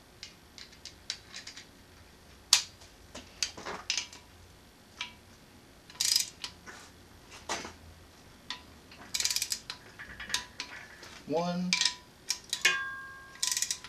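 Hand ratchet wrench clicking in short, irregular bursts, with sharp metal clinks, as bolts are run down and torqued on an aluminium bracket of a Subaru EJ boxer engine. A brief squeak near the end.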